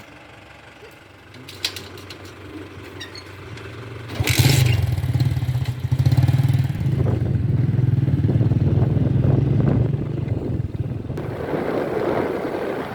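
Diesel engine of heavy earthmoving or farm machinery running, jumping to a loud, steady working run about four seconds in with a brief clatter, and holding under load to the end.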